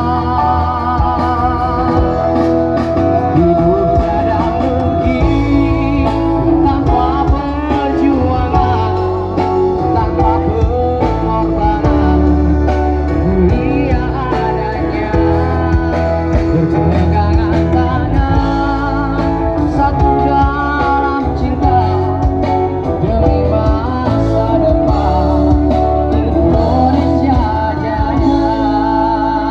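A band playing a song: guitar and a steady beat under a wavering lead melody line.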